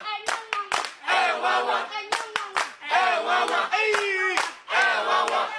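Sharp hand claps mixed with a voice chanting short, drawn-out phrases in a call-like rhythm.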